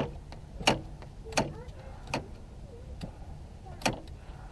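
Hand ratchet clicking as a starter bolt is given its final tightening: sharp single clicks about every three-quarters of a second, with a longer pause before the last one, over a faint low hum.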